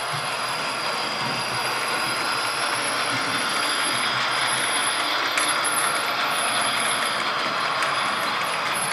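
Hornby OO gauge model of a Stanier Coronation-class 4-6-2 steam locomotive, fitted with a Zimo sound decoder, running with a train of coaches: a steady hiss and rolling noise, with one sharp click about five and a half seconds in.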